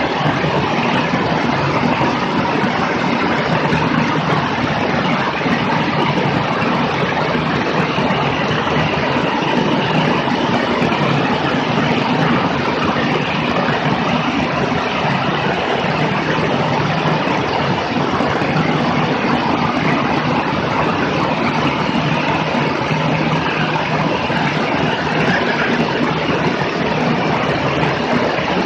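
Steady in-flight drone of a single-engine high-wing light airplane cruising: engine and propeller under a heavy rush of airflow, heard from a camera mounted beneath the wing.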